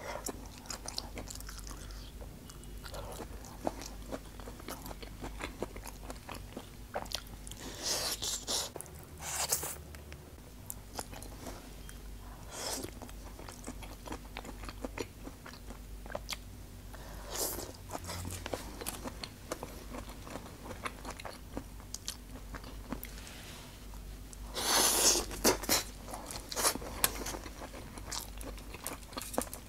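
Close-up chewing and biting of grilled barbecue skewers, including grilled potato slices: wet mouth clicks, smacks and crunching. A few louder hissing bursts stand out, the loudest about 25 seconds in.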